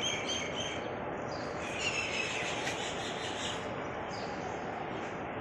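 Small birds chirping in quick repeated notes, one run at the start and another about two seconds in, over a steady outdoor background hiss.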